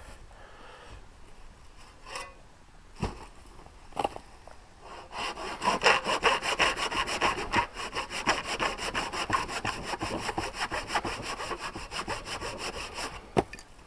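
Rusty handsaw cutting through a branch log with fast, steady back-and-forth strokes, starting about five seconds in after a few light knocks. The sawing stops near the end as the piece is cut off.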